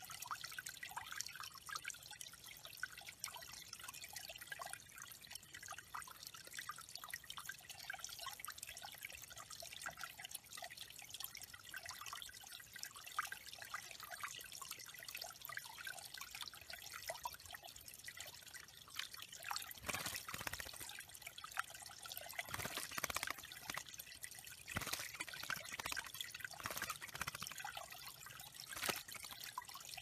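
Small rock waterfall trickling and dripping into a shallow backyard bird pond, with several louder splashes in the second half.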